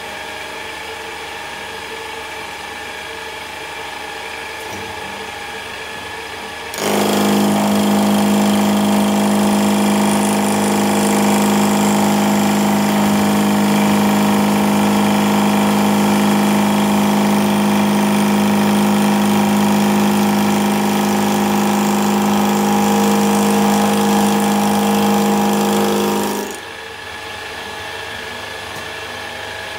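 Old milling machine driving a homemade two-insert APMT carbide end mill at 1450 RPM, taking a light 0.10 mm radial cut in cold-rolled steel. At first the spindle runs alone. About seven seconds in the cutter bites and a much louder, steady pitched cutting hum sets in, which stops near the end, leaving the machine running.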